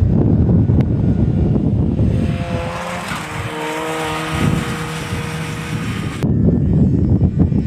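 Wind buffeting the microphone, then a snowmobile's two-stroke engine running as the machine passes close by, its pitch shifting as it goes. The engine sound cuts off abruptly near the end, back to wind noise.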